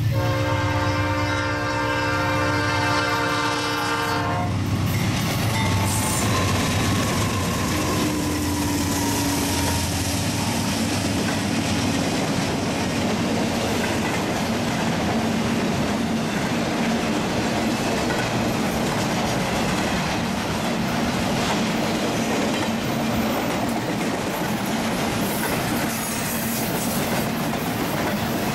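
Diesel freight locomotive horn sounding a held chord, which stops about four seconds in; then the freight train rolls past, its locomotives and a long string of intermodal flatcars carrying highway trailers making a steady rumble of steel wheels on the rails.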